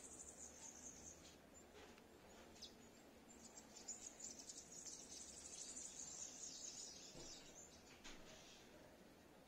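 Faint outdoor ambience with high-pitched, rapidly pulsing chirps over a soft background hiss; the chirping is strongest in the middle and fades out about eight seconds in.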